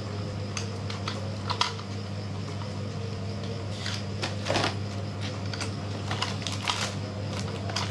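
Clear plastic blister packaging being handled, with scattered crackles and clicks, densest about four to five seconds in and again near the end. A steady low hum runs underneath.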